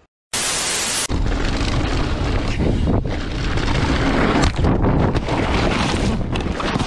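Wind buffeting the microphone of a mountain bike's helmet or handlebar camera on a fast downhill run, a dense, continuous rumble with scattered knocks and rattles from the bike over rough ground. It starts suddenly with a short burst of hiss about a second long.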